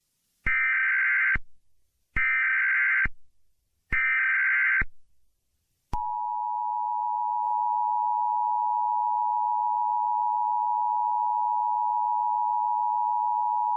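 Emergency Alert System header: three short electronic data bursts of about a second each, followed about six seconds in by the steady two-tone EAS attention signal (853 and 960 Hz sounding together), which holds without a break.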